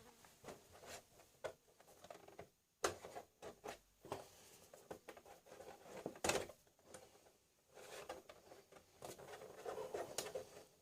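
Plastic clicks, taps and scraping as the front cover of an all-in-one PC's optical drive bay is worked loose by hand, with two sharper knocks about three and six seconds in.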